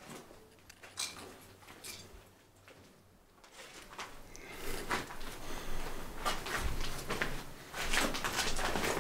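Footsteps crunching and scraping over loose rubble and debris in a small stone room: a few scattered crunches at first, then busier and louder from about halfway through.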